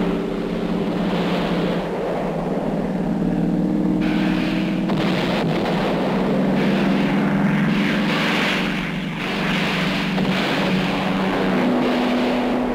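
Aircraft engine drone with rushing air: a steady hum that steps in pitch a few times and bends near the end.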